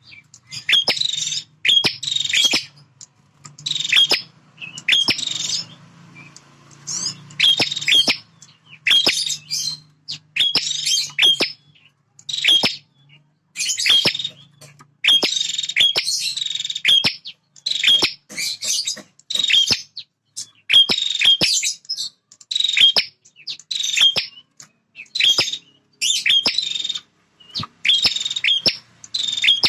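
Male prinia (prenjak) singing its loud territorial song, short sharp phrases repeated every second or two without a break.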